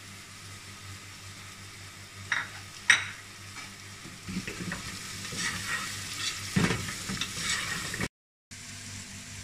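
Chopped vegetables sizzling in oil in an aluminium pressure cooker, with two sharp knocks a little over two and three seconds in. From about four seconds a spatula stirs and scrapes the vegetables and ground spices round the pot.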